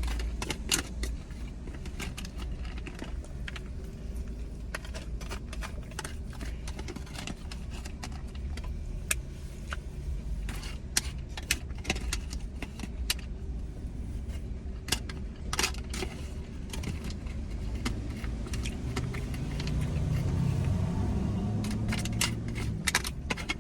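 A utensil clicking and scraping against a takeout food container as the last of a rice bowl is eaten, with a steady low rumble underneath. A low humming tone comes in for a few seconds near the end.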